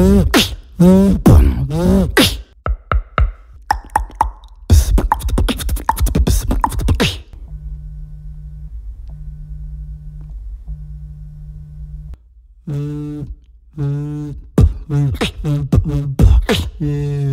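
Vocal beatbox imitations of an electric razor's buzz, then a real cell phone vibrating against the microphone in three steady buzzes of about a second each. The beatboxer then imitates the phone's vibration with his voice in a run of short buzzing pulses.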